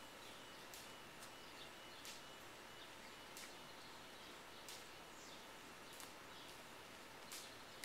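Near silence: faint outdoor ambience with short, high-pitched ticks about every second or so.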